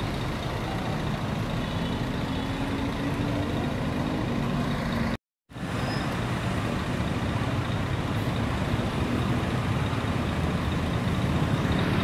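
Diesel coach bus engines running steadily, with one engine's pitch rising gently over a couple of seconds as a bus pulls away. The sound cuts out for a moment near the middle, then a steady engine hum continues.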